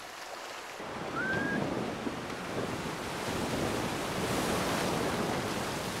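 Sea surf washing in with wind on the microphone, swelling from about a second in. A single short high chirp sounds about a second in.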